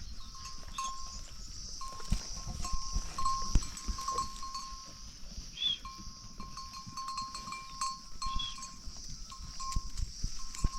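Farm livestock such as goats, with a thin ringing tone coming and going throughout over a steady high hiss, and occasional knocks.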